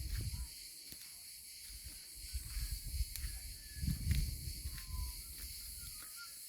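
Steady high-pitched chorus of crickets, with loud low rumbles on the microphone at the start and again through the middle. A few faint short chirps also come through.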